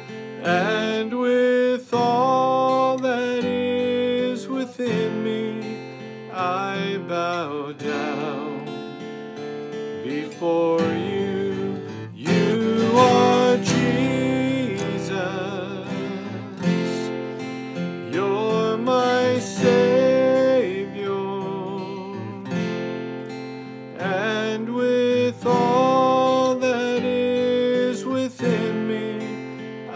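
A man singing a slow worship song, accompanying himself on a strummed acoustic guitar, with long held notes that waver in vibrato.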